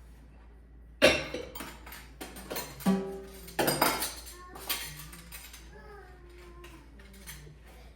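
Clatter of dishes and utensils: a run of sharp clanks with brief ringing, the loudest about a second in, dying down after a few seconds.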